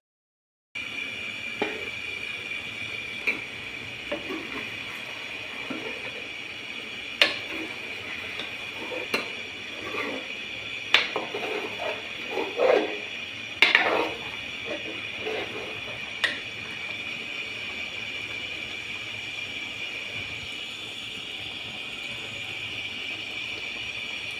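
Metal ladle stirring potato-and-eggplant curry in an aluminium pot, with a dozen or so clinks and knocks against the pot's side, busiest in the first two-thirds, over a steady hiss.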